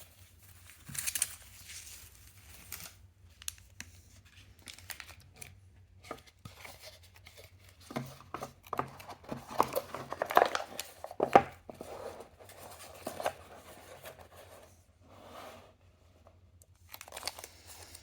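Packaging being handled and opened to unwrap a fidget spinner: crinkling and tearing rustles with scattered small clicks, busiest around the middle.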